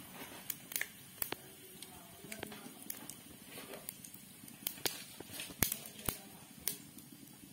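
Whole spices (bay leaves, shahi jeera and cardamom pods) frying in hot oil in a steel kadai: a quiet sizzle with irregular sharp pops and crackles.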